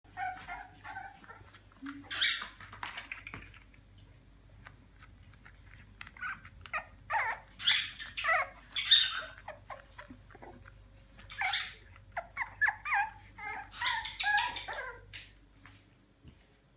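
French bulldog puppies whining and yipping in short high calls, in several bouts, with scattered sharp clicks between them.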